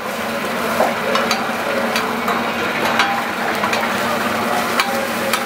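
Chopped chicken sizzling steadily on a hot flat-top griddle, with metal spatulas clicking and scraping against the steel plate now and then as the meat is turned.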